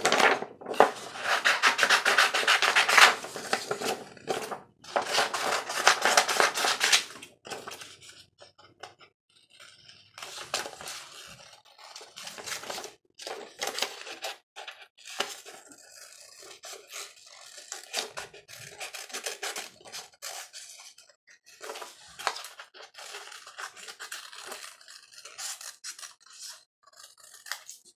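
Paper rustling and crackling as a printed sheet is handled, loudest over the first several seconds, then scissors cutting through the paper in scattered snips and rasps.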